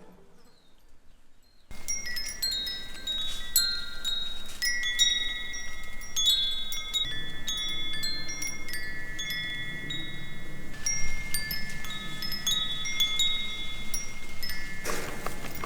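A set of tuned metal chimes ringing, struck at irregular moments and overlapping, each note ringing on. The ringing starts about two seconds in after a near-quiet moment.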